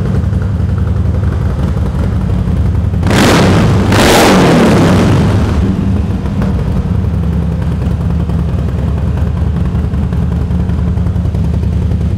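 A 2012 Harley-Davidson Sportster 1200 Nightster's 1200cc air-cooled V-twin idling through its factory exhaust, which the dealer thinks has probably had its baffles taken out. The engine is revved in two short, louder bursts about three seconds in, then settles back to idle.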